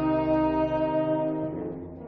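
Concert wind band holding a brass-led chord. The lowest notes drop out about halfway through, and the rest dies away near the end.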